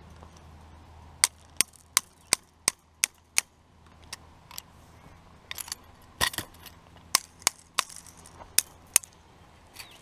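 Sharp metallic clicks from a hand tool tensioning high-tensile fence wire. First comes a run of seven, about three a second, then a looser, irregular series of clicks.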